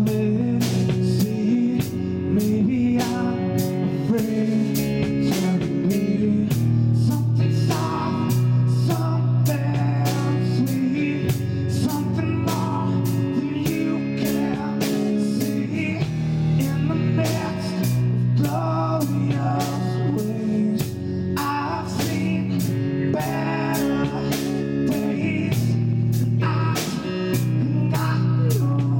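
A band playing blues-rock: amplified guitar over drums keeping a steady beat, with low bass notes underneath.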